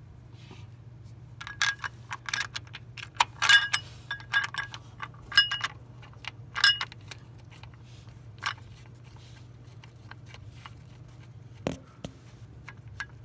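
Small metal tools and parts clinking and rattling against each other: a quick run of sharp, ringing clinks for a few seconds, then a few single clinks.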